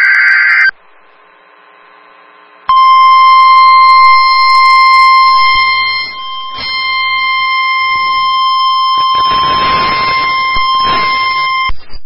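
NOAA Weather Radio test signal. The shrill warbling SAME digital header burst cuts off under a second in. After a pause of about two seconds, the steady 1050 Hz warning alarm tone sounds for about nine seconds, with a hiss joining under it near the end.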